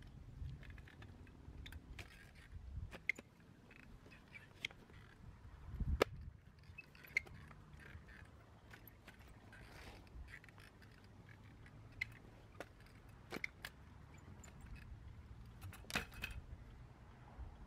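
A shovel digging in garden soil: scattered scrapes and clicks of the metal blade, with sharper knocks about six seconds in and again near the end.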